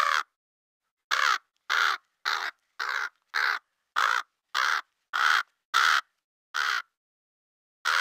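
Crow cawing: one caw at the start, then a quick run of about ten short caws, roughly two a second, beginning about a second in, and one more caw at the end.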